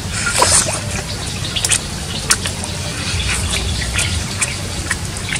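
Close-up wet eating sounds of cooked water snake being bitten and chewed: irregular sharp mouth clicks and smacks over a steady low rumble.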